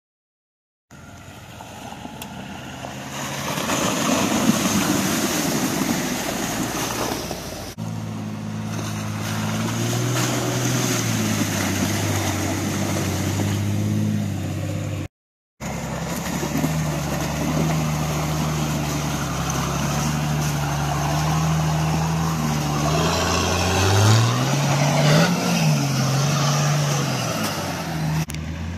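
Off-road 4x4 engines on oversized mud tyres working through deep mud, running hard and revving up and down, with mud and water churning. It opens with about a second of silence, and the sound cuts off abruptly twice, with a brief silence the second time.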